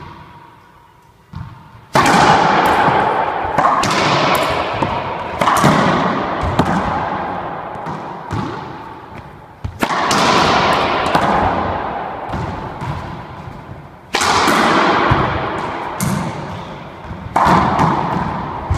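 Racquetball rally: the hollow rubber ball cracks off racquet strings and the court's walls and floor. Each hit rings on for about a second in the enclosed court. The rally starts about two seconds in with the serve, and the hits come every second or two after that.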